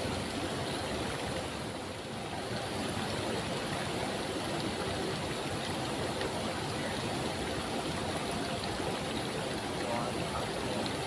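Waterfall water rushing steadily, an even hiss of falling and flowing water that dips slightly about two seconds in.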